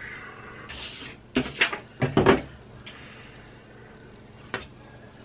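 Handling noises at a table: a short rustle of paper about a second in, then a cluster of quick knocks and bumps of a hand-held wooden board against the tabletop, and one sharp click near the end.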